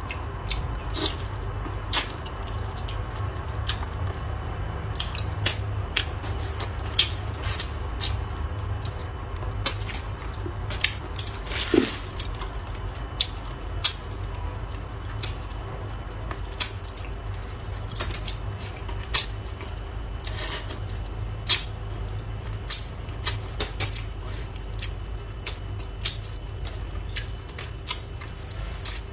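Eating sounds: irregular sharp clicks of chopsticks against bowls and dishes, with soft chewing in between, over a steady low background rumble.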